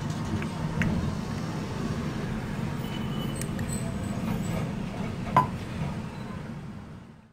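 Steady low background rumble with a few light clicks and one sharper clink about five seconds in.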